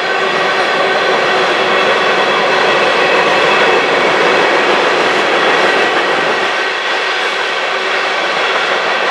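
Union Pacific grain train's covered hopper cars rolling over a stone arch bridge: a steady, loud noise of steel wheels on rail.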